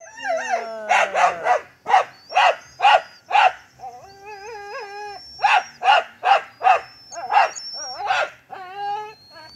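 A dog barking in quick runs of short, sharp barks, with a wavering whine about four seconds in.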